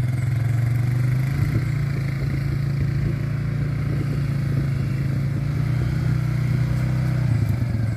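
ATV (quad bike) engine running steadily as it drives across grass, a low, even hum with little change in pitch.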